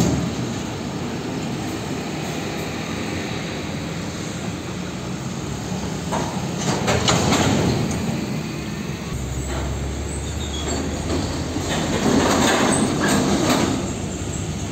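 Heavy trucks and cars driving over a rough railway level crossing, their wheels and loads knocking and clattering over the rails above steady engine and tyre noise. The clatter swells twice, about six seconds in and again about twelve seconds in, and a low engine rumble sets in about halfway through.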